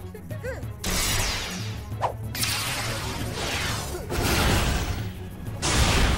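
Cartoon power-up transformation sound effects: a few faint chirpy glides, then a series of loud whooshing swooshes with a sharp rising zing about two seconds in, over music.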